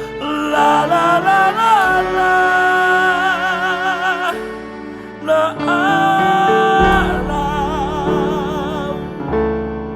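Gospel worship song music: a lead voice holds long, wordless notes with vibrato over sustained keyboard chords, then drops out near the end, leaving the keyboard.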